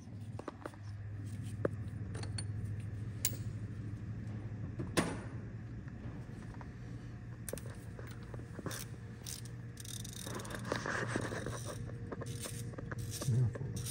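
Scattered metal clinks and scrapes of tools and a cast iron exhaust manifold being handled, with one sharp knock about five seconds in, over a steady low hum.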